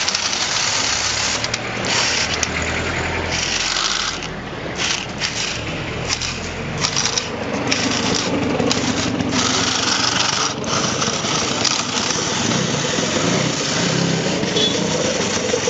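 Small electric drive motors of a mobile robot running, a steady buzzing whir with several brief dips near the middle.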